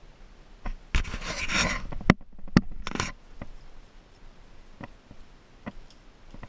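Climbing rope and belay gear handled close to the microphone: about a second of rustling and scraping, then a few sharp metallic-sounding clicks, with fainter single clicks later.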